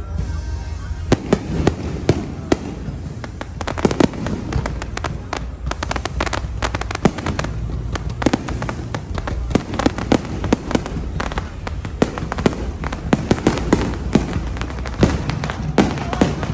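Fireworks display: a dense run of sharp crackling pops and bangs, many a second, over a steady low rumble.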